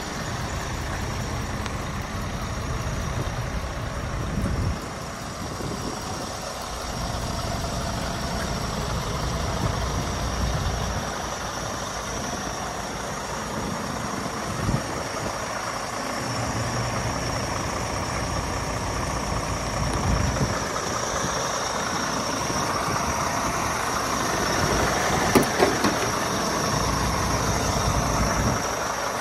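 Scania R490's 13-litre straight-six diesel idling steadily. A few sharp clicks come near the end.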